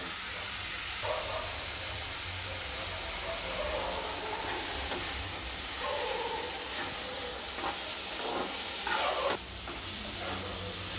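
Chopped onions and green chilli sizzling in a little oil in a kadai while a steel spoon stirs them, with a few louder scrapes of the spoon against the pan about nine seconds in. The onions are being sautéed lightly, to half-cooked.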